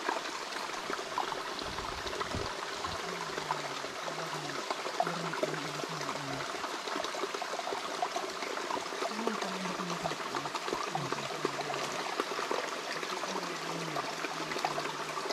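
Shallow stream water trickling and running over rocks in a steady, even rush.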